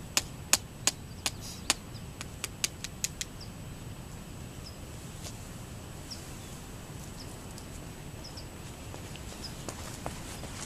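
A quick run of about a dozen sharp clicks over the first three seconds, loudest at first and coming faster as they fade. After that, only faint short high chirps about once a second over a steady low background.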